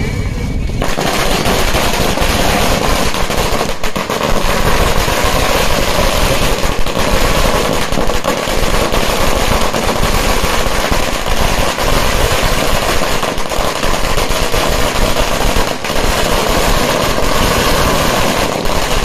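A long string of firecrackers laid out on the ground going off, a rapid unbroken crackle of bangs that starts about a second in and runs on without a pause.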